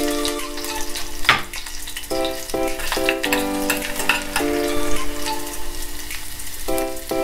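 Chopped garlic sizzling in hot oil in a small stainless-steel saucepan, with a few clicks of a metal spoon stirring it. Upbeat electronic background music plays over it in steady held notes.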